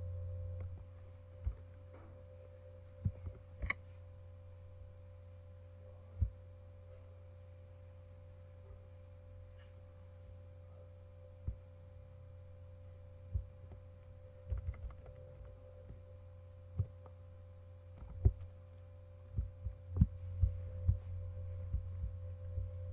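Steady low electrical hum from the recording setup, with scattered sharp computer mouse clicks and key presses, irregular and more frequent near the end.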